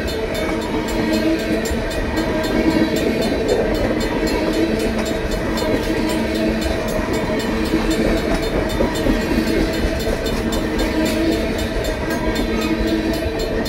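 Freight train tank cars rolling past over a grade crossing, their wheels running on the rails in a steady rumble. The crossing bells, including a Safetran mechanical bell, ring without a break in a quick, even beat.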